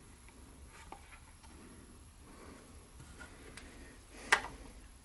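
A knife and its sheath being handled: faint small ticks, then one sharp click about four seconds in.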